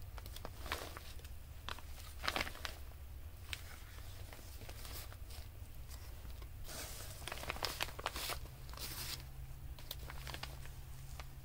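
Paper being handled: irregular short bursts of rustling and crinkling, busiest about two seconds in and again in a cluster from about seven to nine seconds.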